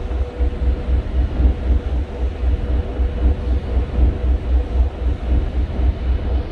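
Large passenger ferry's diesel engines running under way, heard on board as a regular low throb with a steady hum.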